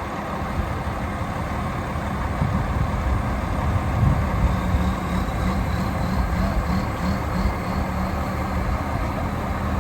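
Diesel engines of heavy lifting equipment running steadily, with a faint rising whine from about halfway through.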